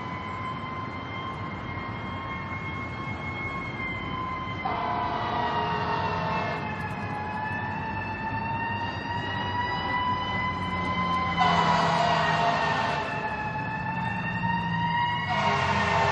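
Emergency vehicle siren wailing, its pitch slowly rising and falling, with three blasts of a lower, harsher horn over it: about five seconds in, about eleven seconds in, and from about fifteen seconds in.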